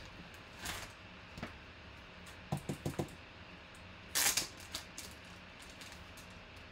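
A trading-card pack opened by hand: a paper envelope and a clear plastic sleeve rustling, with a cluster of small sharp clicks about halfway through and the loudest rustle just after four seconds.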